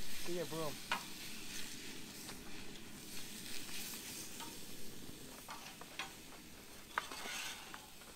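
Food frying on a camp stove, a steady sizzle, with a few sharp clicks about one, six and seven seconds in. A child's voice is heard briefly at the start.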